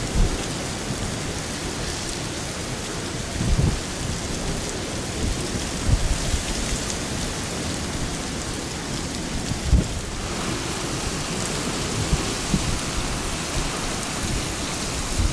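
Steady heavy tropical-storm rain and wind, with several low rumbling thumps where gusts buffet the microphone.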